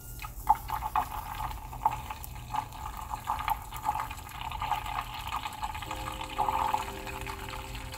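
Liquid being poured into a bowl, with irregular splashing and gurgling. Light background music comes in about six seconds in.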